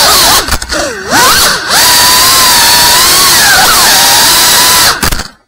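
FPV quadcopter's brushless motors and propellers whining loudly, heard from on board the drone. The pitch rises and falls with the throttle, dips sharply about half a second in, and drops away almost to nothing near the end as the throttle is cut.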